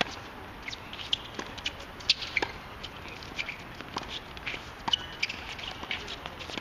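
Tennis balls struck by rackets during a doubles rally on a hard court: several sharp pops a couple of seconds apart, among quick footsteps and shuffling on the court.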